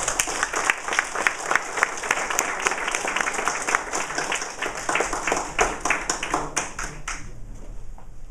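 A small audience applauding, with individual claps distinct, then dying away about seven seconds in.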